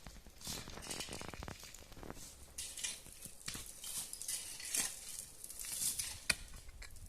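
Irregular scraping with scattered light clicks and knocks, as of hands working with tools or utensils.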